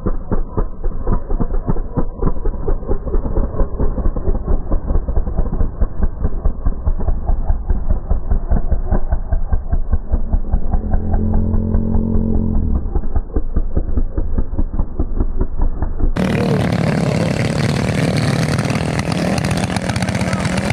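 Single-cylinder minibike engines running and revving. For most of the stretch the sound is dull and muffled, with a steadier engine note about halfway through. Near the end it switches suddenly to a clearer sound of an engine running close by.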